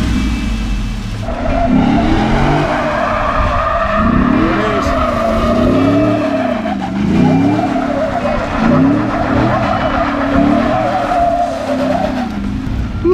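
Ford Raptor's 6.2-litre V8 through a Borla Touring cat-back exhaust, revving up and down over and over while the tyres squeal steadily.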